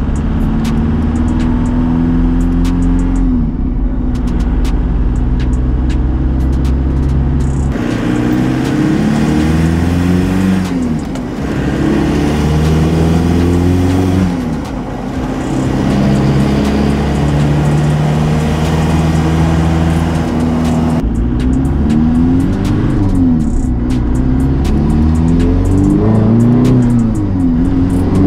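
Toyota pickup's swapped-in 3.4 V6 accelerating through the gears of its freshly rebuilt manual transmission. The revs climb and fall back with each shift several times, with steadier cruising in between, heard from inside the cab.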